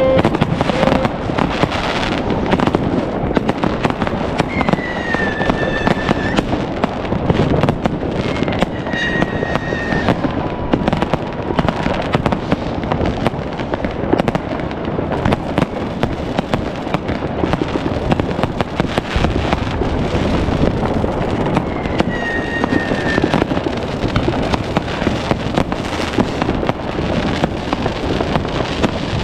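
Dense New Year's Eve fireworks from batteries, rockets and bangers: continuous crackling and popping with frequent sharp bangs, and three times a high whistle that falls slightly in pitch.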